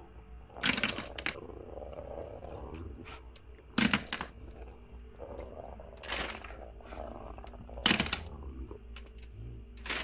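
Spooky sound-effects ambience: a steady low drone with a faint high whine, broken about every two seconds by a loud, short, hissing burst that sounds animal-like.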